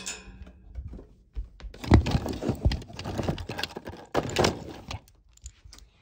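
Fidget toys rattling and clattering against a metal cart basket as they are put in, a dense run of knocks and clicks with the loudest thump about two seconds in.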